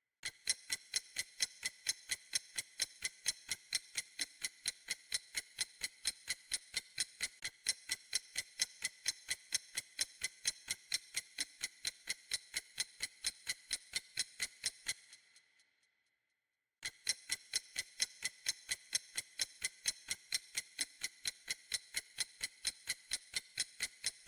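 Clock-tick countdown timer sound effect: steady, quick ticks, a few a second, that stop about 15 seconds in and start again nearly two seconds later.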